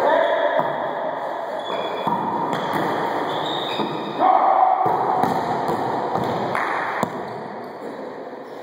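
Rubber wallyball being struck by hands and rebounding off the walls of an enclosed court during a rally: several sharp slaps and bangs that ring in the room.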